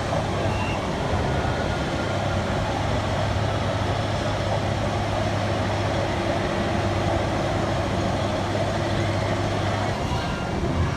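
A steady low engine-like hum under constant outdoor noise; the hum stops about ten seconds in.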